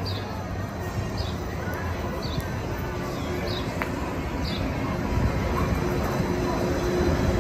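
Disneyland Mark VII monorail train rolling in along its elevated beam, a low rumble that grows steadily louder as it comes overhead, with a steady hum joining about three seconds in. A bird chirps about once a second over it.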